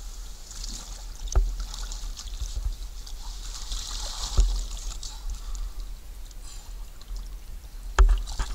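Water lapping and trickling in shallow lake water, swelling in the middle, over a low rumble, with a few dull thumps.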